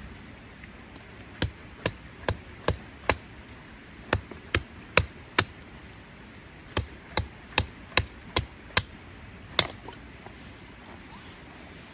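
Sharp, repeated blows from a hand tool: three runs of four to six hits about two and a half a second, then one last single hit.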